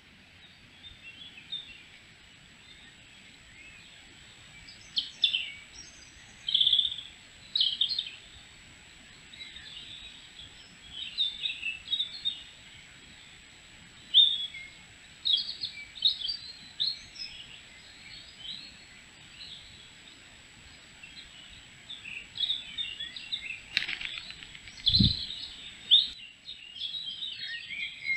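Songbirds chirping and calling in woodland, many short high chirps and phrases overlapping. A single low thump about twenty-five seconds in.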